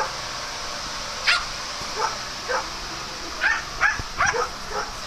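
Dogs barking during play: a run of short, sharp barks and yips, about eight in all, coming faster and closer together from about three seconds in.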